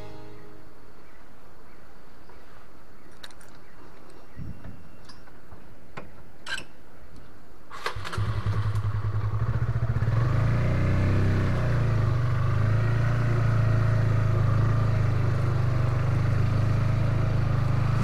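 Honda motorcycle engine: quiet for the first eight seconds, then it cuts in and runs steadily, getting louder from about ten seconds as the bike rides along a dirt trail.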